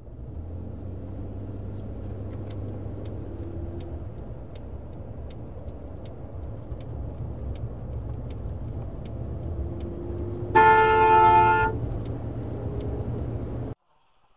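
Steady car engine and road rumble, heard from inside a moving car, with faint ticking at an even pace. About three-quarters of the way through, a car horn sounds once for about a second and is the loudest thing; the driving sound then cuts off.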